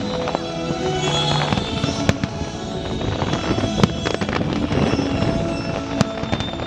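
Fireworks going off in a string of sharp bangs and crackles over recorded music with held notes, the loudest bang about four seconds in.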